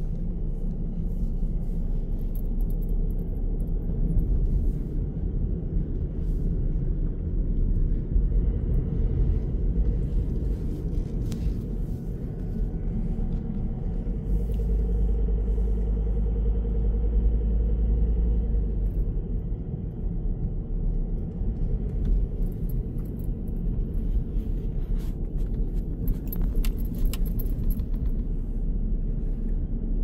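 Car driving slowly, with a steady low rumble of engine and road noise and a few light clicks near the end.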